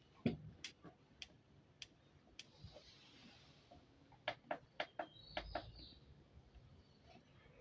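A faint series of sharp clicks and taps, a few spaced about half a second apart, then a quicker run of them about four seconds in.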